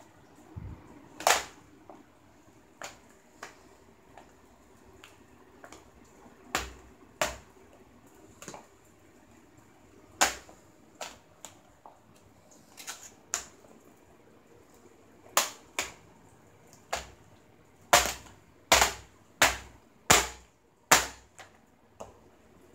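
A Samsung notebook laptop being trodden on in flat shoes: sharp cracks and knocks from its plastic casing under the feet, scattered and irregular at first, then five loud ones in quick succession near the end, about two every second and a half.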